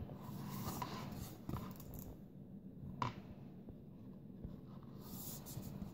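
Thick cardboard pages of a board book being turned by hand, with soft handling rustles and one sharp tap about three seconds in.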